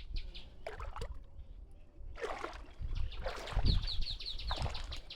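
A bird calling in fast runs of high chirps, about eight a second, near the start and again in the second half. In between come several short splashing or rustling rushes, the loudest a low thump about three and a half seconds in.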